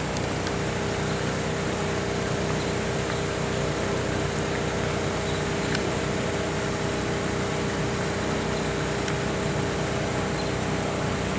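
An engine running steadily at a constant pitch, a continuous even drone.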